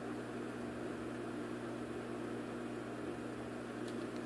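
Steady hum of reef aquarium pumps and water circulation, with a few faint clicks near the end.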